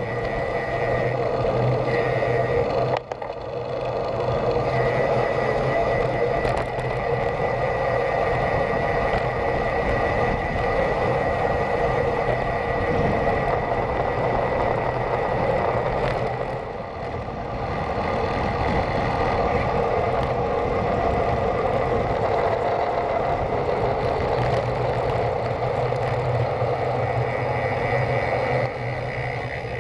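Steady rushing of wind over the microphone of a camera riding on a road bike, with tyre noise on the tarmac, dipping briefly about three seconds in and again near the middle.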